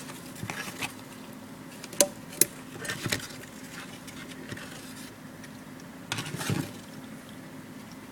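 Scattered light clicks and taps of hard objects knocking together, in a few short clusters, over a steady low hum.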